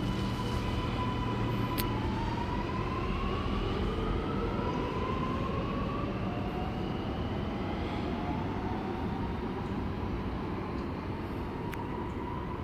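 Alstom Metropolis driverless metro train pulling away from the platform, its traction motors whining. The whine holds steady at first, then climbs in pitch in several repeated steps as the train gathers speed.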